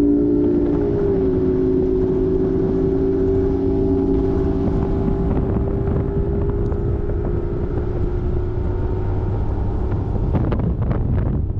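Bass boat's outboard motor running steadily at speed, with wind rushing over the microphone. The engine's pitch dips slightly about a second in.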